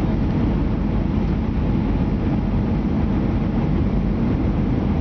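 Steady low rumble of an Airbus A319's engines and rushing airflow heard inside the passenger cabin during the approach through cloud.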